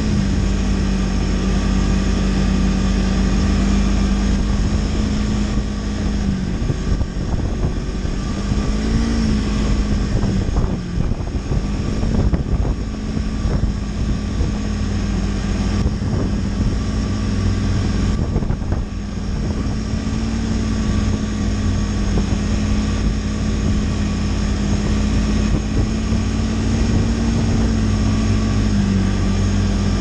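Snowmobile engine running steadily while riding along a trail, its drone easing off and picking up again briefly a few times.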